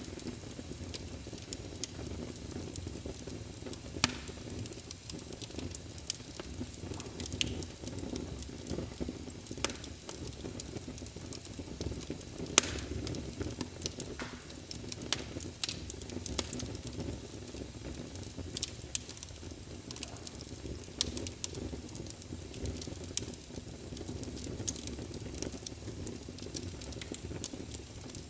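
Wood fire burning in a fireplace: a steady low rumble of flames with frequent irregular crackles and pops. A few sharper pops stand out, one about four seconds in and one near the middle.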